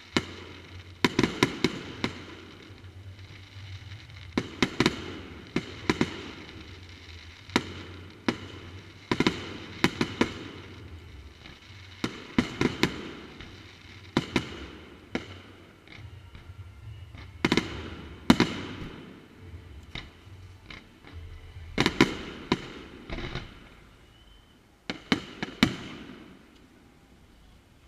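Fireworks display: aerial shells bursting in quick clusters of sharp bangs every second or two, with crackling and echoes after them, thinning out near the end.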